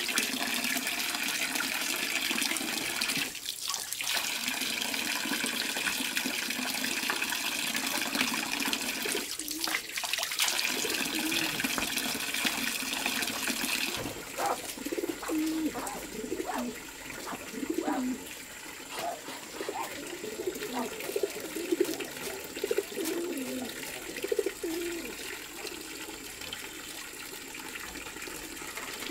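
Water from a tap pouring steadily into a steel basin of water, twice briefly broken up. About halfway through the water gives way to a quieter stretch of short, low animal calls.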